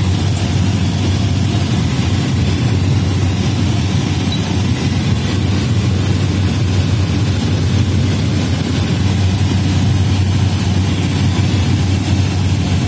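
Steady drone of a small propeller aircraft's engine heard from inside the cabin in flight: a strong low hum with a thin high whine over it, unchanging throughout.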